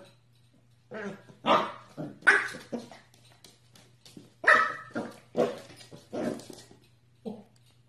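Corgi puppy barking in play at a ball: a run of short barks about a second in, a pause, then a second run from about four and a half seconds, with one last bark near the end.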